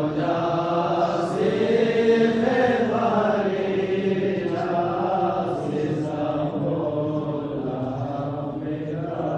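Devotional chanting: a voice holding long, drawn-out notes that bend slowly up and down, without clearly spoken words.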